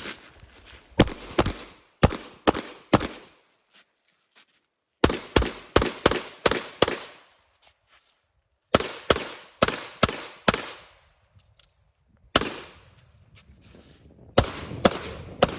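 Walther Q5 Match SF pistol fired in fast strings of shots, often in quick pairs. The strings are broken by pauses of one to two seconds while the shooter moves or reloads through a timed competition stage. One lone shot comes about 12 seconds in.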